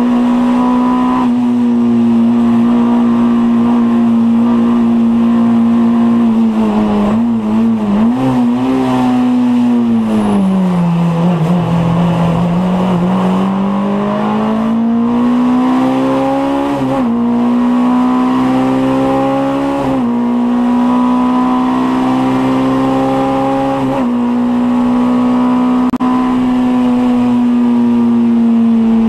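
VW Scirocco Mk2 16v race car's four-cylinder engine heard from inside the cabin, held at high revs on a racing lap. The revs waver and sag about eight seconds in, fall lowest a few seconds later, then climb again, with three brief dips in pitch as it changes gear.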